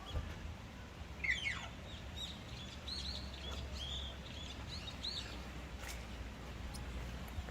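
Small birds chirping: a string of short, quick, high arched notes from about a second in to about five seconds in, over a low steady rumble.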